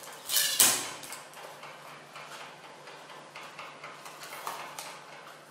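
Sellotape pulled off a desk tape dispenser and cut on its blade: a loud rip in the first second. Then quieter crinkling and tapping as the tape is pressed onto a folded drawing-paper cube.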